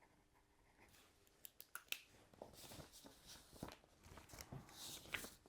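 Faint rustling and scattered light clicks of paper sheets being handled and leafed through, during a search for one poem among many loose slips of paper.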